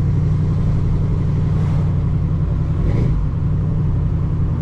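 Buick Regal driving along, a steady low drone of engine and road noise, with a brief knock about three seconds in.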